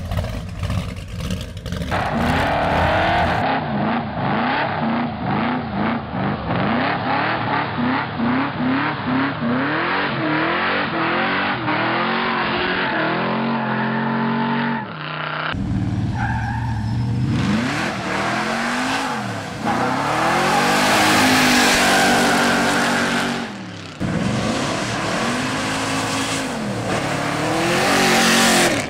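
Chevrolet ZZ572 big-block V8 in a pickup truck revved hard again and again in quick rising-and-falling sweeps. In the second half the revs are held high in burnouts, the rear tyres spinning and hissing on the pavement. Abrupt cuts join the separate takes.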